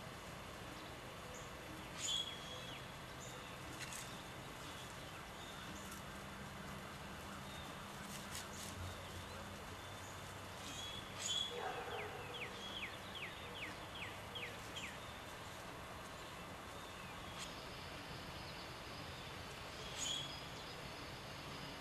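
Quiet outdoor ambience with a steady faint hiss, broken now and then by short sharp bird chirps. Near the middle, a bird sings a quick run of about ten down-slurred notes, about four a second.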